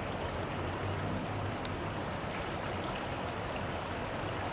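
Flooded river rushing steadily: the swollen main channel flowing fast beneath a bridge.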